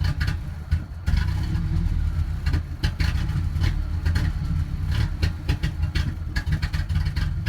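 1998 Ford Ranger's twin-plug four-cylinder engine idling roughly and unevenly, with irregular pops and a brief sag about a second in. The owner takes the roughness for a misfire but isn't sure.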